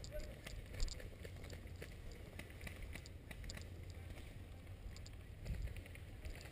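Faint footsteps and rustling as a player moves on foot, with scattered small crackles and clicks over a low rumble of handling on a body-worn camera's microphone.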